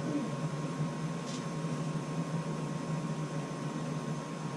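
Steady mechanical background hum with a faint constant whine, with one brief faint scratch a little over a second in.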